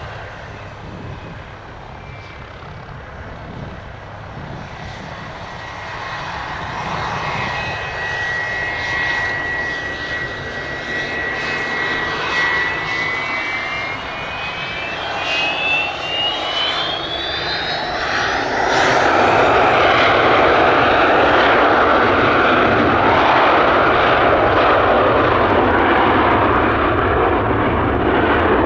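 Canadair Challenger 350 business jet's twin turbofans on takeoff: a high whine that dips and then climbs steeply in pitch, then, about two-thirds of the way in, much louder rushing jet noise takes over and holds steady.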